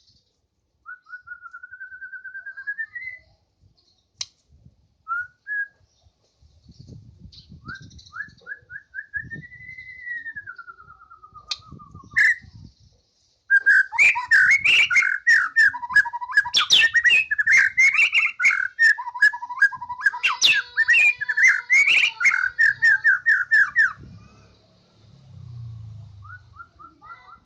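White-rumped shama singing. At first it gives a few separate whistled phrases, some sliding slowly up and then down. About thirteen seconds in it breaks into a loud, fast, varied run of notes for about ten seconds, then falls quiet near the end.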